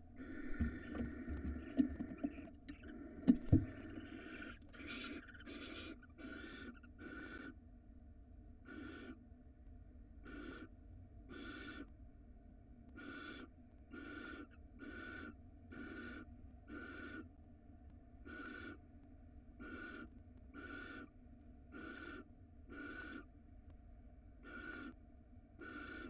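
Barn owls hissing in a nest box: a long raspy hiss with a few sharp knocks in the first few seconds as the male comes in, then a steady series of short hissing 'snore' calls, about one a second, the food-begging call given as the male brings prey.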